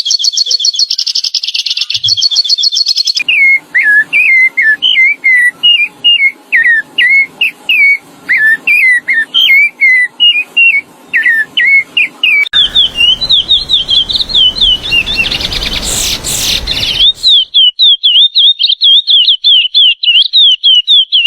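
Songbirds singing in a series of separate clips joined by abrupt cuts: first a fast, high trill, then repeated whistled phrases a little lower in pitch, then quick high notes over a noisy background, and finally rapid high chattering song.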